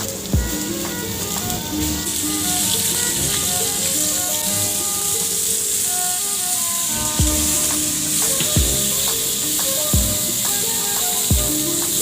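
Food sizzling in a hot pan under background music. The music has held notes and occasional low beats, and the sizzle is a steady high hiss throughout.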